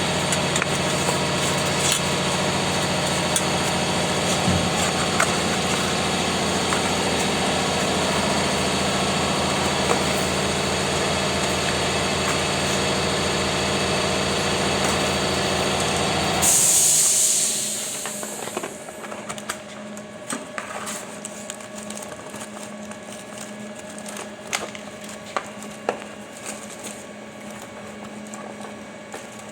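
Scrap baling press running steadily with a loud mechanical drone. About sixteen seconds in a short, loud hiss bursts out and the machine runs down, leaving a quieter steady hum with scattered clicks and knocks.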